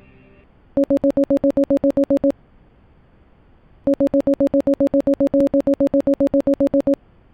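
Electronic broadcast alert beeping: a two-pitch tone pulsing rapidly, about nine beeps a second, in two runs, a short one of about a second and a half and then a longer one of about three seconds, over a faint hiss.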